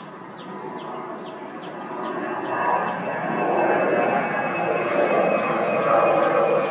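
An engine growing steadily louder as it approaches, with a steady high whine on top. Evenly spaced high chirps, about two or three a second, fade out about two seconds in.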